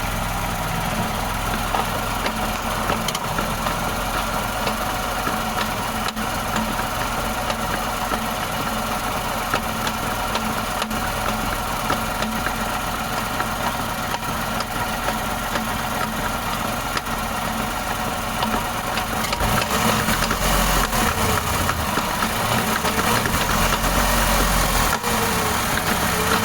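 Car engine running steadily, growing louder about twenty seconds in.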